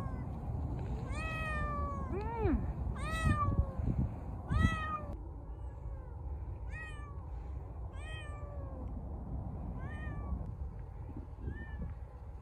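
Feral cats meowing over and over, about nine rising-then-falling meows, louder in the first five seconds and softer after; one call about two seconds in is lower-pitched than the rest.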